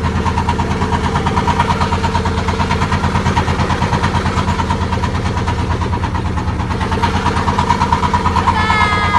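A wooden motorboat's engine running steadily under way, with an even pulsing beat.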